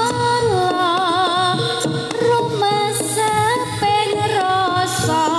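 Live Javanese jaranan music: an ornamented melody with wavering pitch over drumming and sharp percussion strikes.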